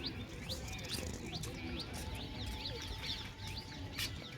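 Birds chirping: many short, high chirps, about three a second, over a steady low rumble.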